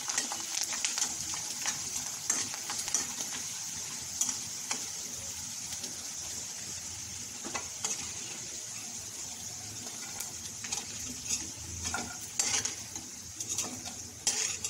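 Hot oil sizzling steadily in a karahi as small dried snack chips (fryums) fry, with a metal spoon scraping and tapping against the pan now and then as they are stirred.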